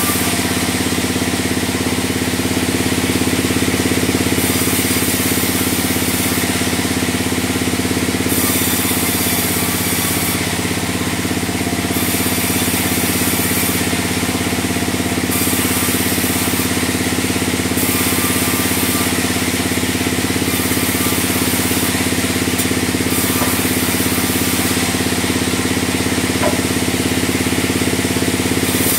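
Log band sawmill running: a loud, steady machine hum from the drive, with a high hiss from the blade cutting through timber that comes and goes every second or two.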